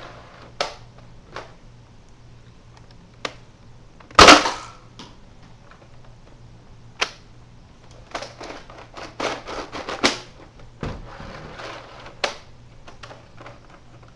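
Nerf Mega Centurion spring-powered dart blaster firing: one loud sharp crack about four seconds in, with scattered smaller clicks and knocks before and after, and a quick run of them between about eight and ten seconds in.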